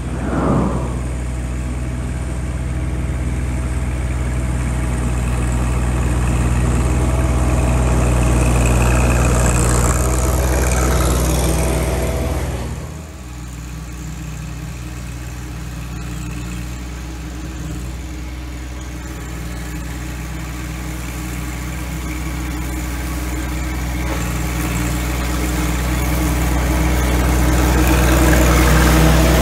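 John Deere 1025R sub-compact tractor's three-cylinder diesel running steadily with its 54-inch mid-mount mower deck cutting tall grass, growing louder as the tractor comes closer. About halfway through the sound drops off abruptly, then builds again as the tractor approaches once more.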